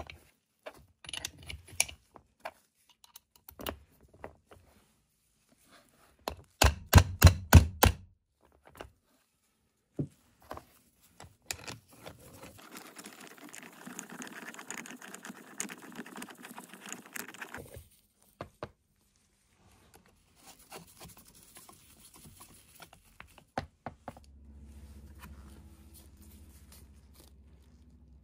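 Metal hand-tool parts being handled and worked: scattered sharp clicks and knocks, a loud quick run of about ten taps a quarter of the way in, then a few seconds of steady scraping around the middle.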